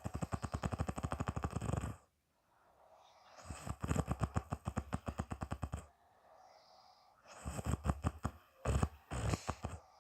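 A woman snoring: three loud, rattling snores, each about two seconds long and made of a fast run of pulses, coming about every three and a half seconds.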